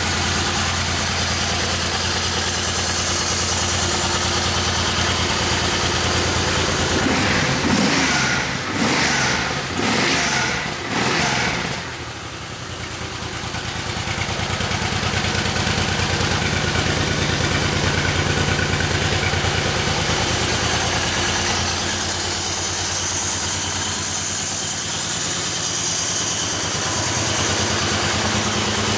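Honda VTX1800's big V-twin engine idling steadily, with a few brief louder surges about a third of the way through.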